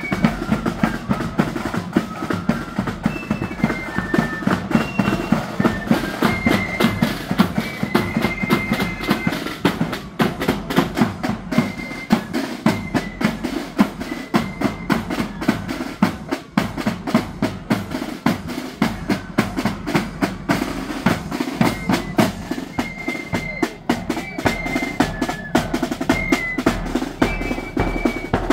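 Marching flute band playing a tune: a melody on flutes over rapid snare-drum rolls and steady bass-drum beats.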